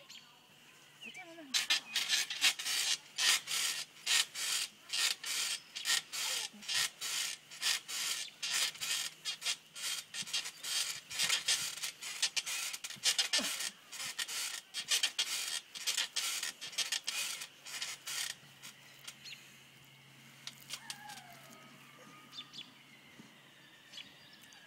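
Rapid rhythmic rasping and rubbing, a few strokes a second, on a trampoline's safety-net enclosure. It runs for about sixteen seconds and then stops, leaving a few faint bird chirps.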